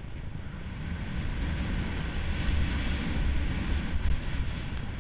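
Wind buffeting the microphone during a fast descent on snow, with the hiss of sliding over the snow surface, growing louder through the middle.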